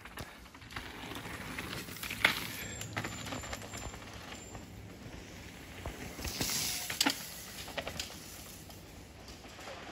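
Downhill mountain bike ridden over a dirt trail: tyres scrubbing and crunching on dirt and roots, with sharp clacks as the bike rattles over bumps, loudest about two seconds in and again around seven seconds in.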